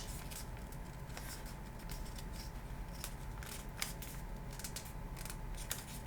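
A sheet of thin kami origami paper being handled and folded by hand: soft rustling broken by many short, sharp crinkles and ticks as a flap is folded up and creased.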